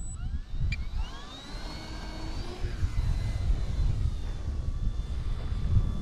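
E-flite Turbo Timber RC plane's electric motor and propeller throttling up for takeoff with a rising whine, levelling off after about two seconds into a steady high drone as the plane climbs away. Gusty wind rumbles on the microphone.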